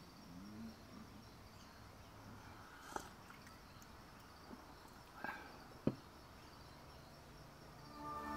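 Quiet outdoor ambience with three short, sharp clicks, one about three seconds in and two more between five and six seconds in. Music begins to swell in near the end.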